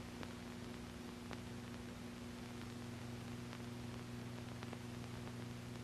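Faint steady electrical hum with background hiss and a few faint clicks, the noise floor of an old film soundtrack.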